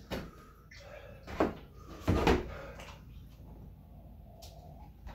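Milk poured from a plastic gallon jug into a glass, with a few clunks of the jug and cups being set down on the table, the loudest about two seconds in.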